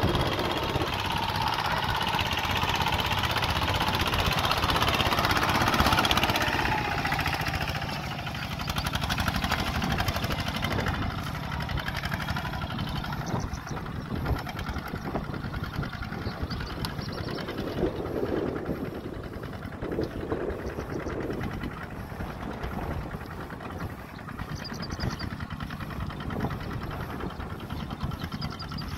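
Kubota walking tractor's single-cylinder diesel engine running with a steady knocking beat. It is louder for about the first seven seconds, then settles to a quieter, even run.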